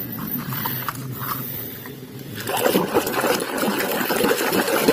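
Water splashing and sloshing as a hand swishes muddy toys through it to wash off the mud, getting louder about halfway in.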